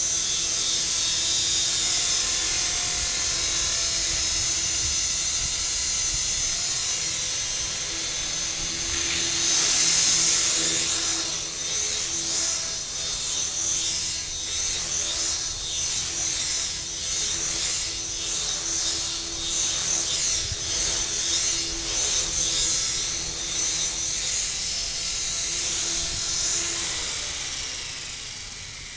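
An electric Tarot 450 Pro RC helicopter's motor and main rotor whine at a high pitch as it hovers. From about ten seconds in, the whine wavers up and down in loudness with the throttle and pitch changes of low flying. Near the end it winds down as the helicopter settles on the ground and the rotor spools down.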